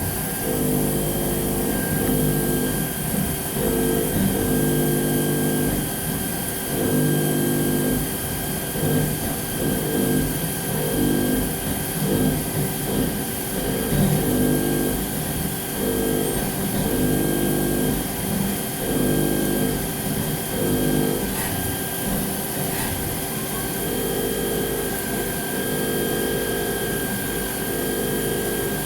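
Haas ST-20Y CNC lathe machining an aluminium part. A pitched cutting hum comes and goes in stretches of about a second, over a steady high whine from the machine.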